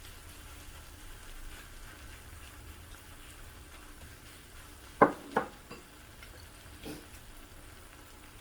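Squid and pork belly stir-fry frying faintly on an iron griddle plate. Two sharp knocks come about five seconds in, with a lighter one a moment later.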